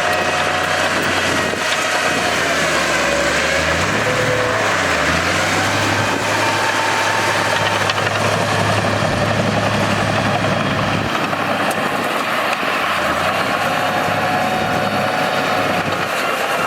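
Bulldozer's diesel engine running steadily as it works, its pitch rising and falling a little.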